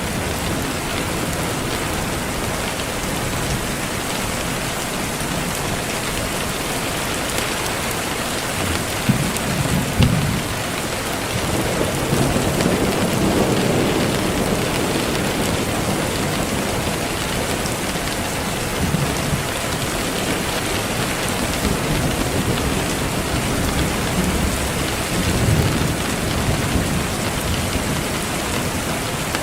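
Steady rain hissing, with low swells of distant thunder rumbling about a third of the way in, in the middle and again near the end.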